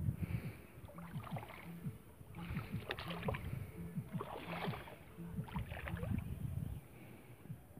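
Shallow water splashing and sloshing in several short bouts as hands work a fish free of a gill net, over a low rumble.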